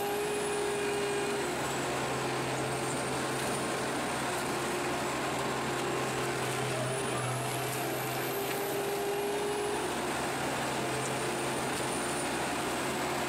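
Morbark HT1684 Predator stump shredder, powered by a Caterpillar C12 six-cylinder turbo diesel, running steadily with a low engine drone. A faint high whine slowly falls, rises and falls again over it.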